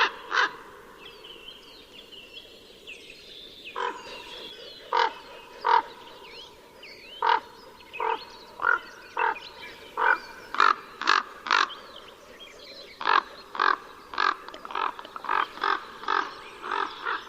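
Crows cawing: runs of short, harsh caws, about two a second, with a pause of about three seconds near the start.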